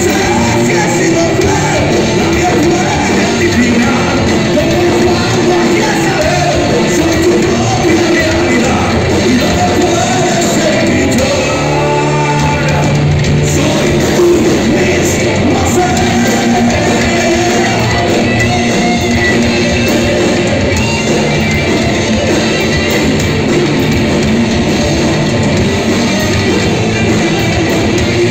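Heavy metal band playing live: distorted electric guitars, bass and drums, with a male voice singing, loud and steady throughout.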